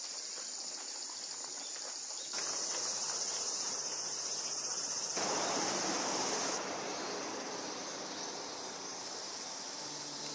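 A steady, high-pitched chorus of cicadas droning in summer woodland. It shifts in pitch and loudness about two seconds in, and again after about six seconds.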